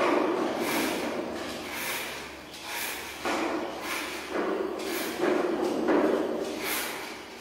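Vegetable peeler scraping the skin off a green gourd in repeated strokes, about one a second.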